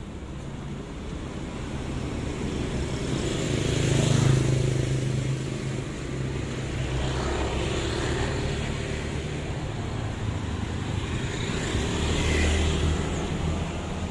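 Street traffic passing: the engines of motor scooters and cars swell as vehicles go by, loudest about four seconds in and again near the end.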